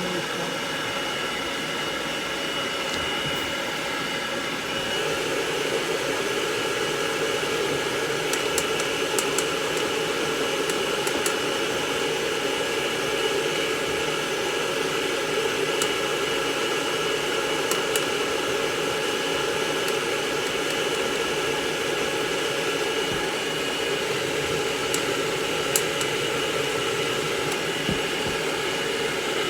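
Hair dryer blowing steadily, drying a cat's fur; its sound fills out a little about five seconds in.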